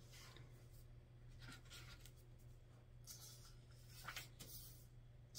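Near silence: room tone with a steady low hum and a few faint, short scratchy rustles, mostly in the second half.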